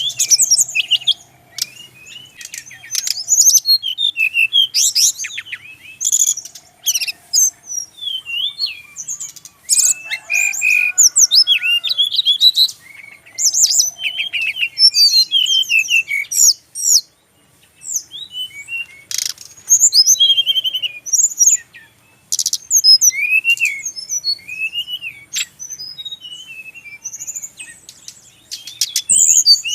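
Brown-chested jungle flycatcher singing a varied, rapid song of chirps, trills and sliding whistles, delivered in bursts with short pauses.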